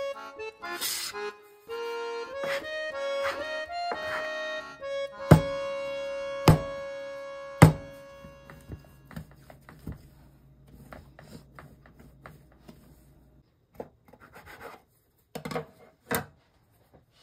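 Instrumental background music with a melody that ends in three sharp accented chords about five to eight seconds in, the last one ringing out. After that come faint scattered clicks and light knocks.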